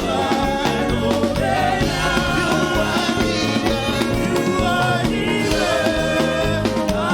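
Upbeat gospel praise-and-worship music: singing over instruments with a steady beat.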